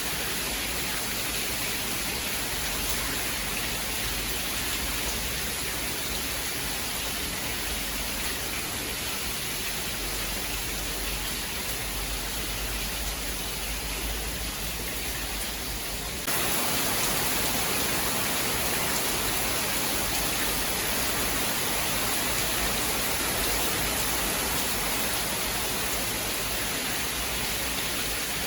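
Steady rain, an even hiss with no distinct claps. A little past halfway it abruptly becomes louder and brighter, as at a splice in the recording.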